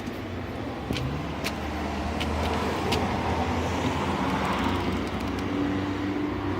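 Road traffic: a motor vehicle's engine running steadily, with a few light clicks in the first three seconds.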